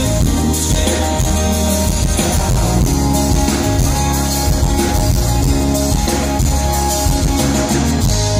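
Live band playing through a stage PA: strummed acoustic guitar, electric guitars, bass and drum kit, a steady, full band sound with a regular beat.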